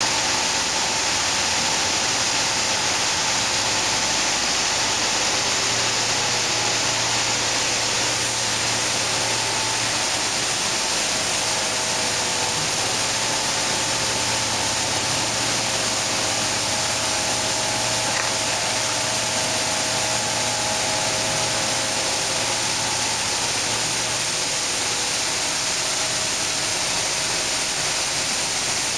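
Sunflower seed hulling line running: blowers, hullers and vibrating screens make a steady, loud machine noise dominated by a high hiss, with faint steady hums underneath; the lowest hum fades out near the end.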